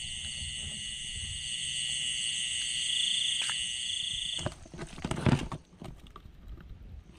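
A steady, high-pitched trilling chorus of night creatures in the paddy, which cuts off abruptly about four and a half seconds in. A few sharp knocks and rustles follow, the loudest just after the trilling stops.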